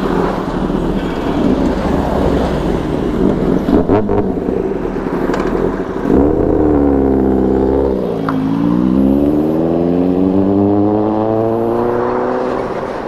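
Loud high-performance vehicle engine passing close by. After several seconds of rumbling engine noise, a strong engine note comes in suddenly about six seconds in, dips briefly, then climbs steadily as the vehicle accelerates, fading near the end.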